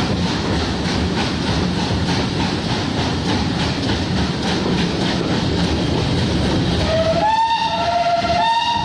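Two GWR Manor class 4-6-0 steam locomotives working a train, heard from a coach behind them: steady running noise with a rhythmic beat of about three strokes a second. Near the end the locomotives' steam whistles sound a few held notes at stepped pitches.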